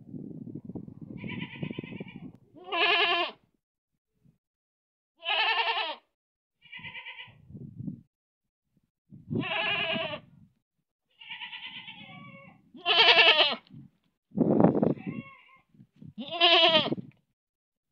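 Domestic goat bleating repeatedly: about six loud, wavering bleats a second or more apart, with fainter calls between them. A low rustle in the first couple of seconds.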